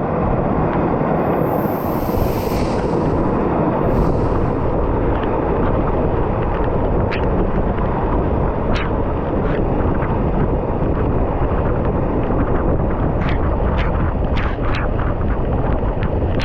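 Waterfall rushing: a loud, steady roar of falling water, with a few brief sharp sounds near the end.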